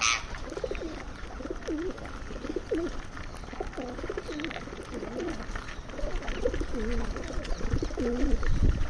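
Pigeons cooing, one low, wavering call after another, with a short sharp high-pitched call right at the start and a low rumble near the end.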